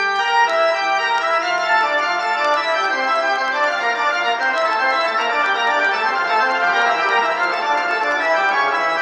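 A vinyl record playing on a homemade turntable built from tins: keyboard music of held, overlapping chords, sounding like an organ.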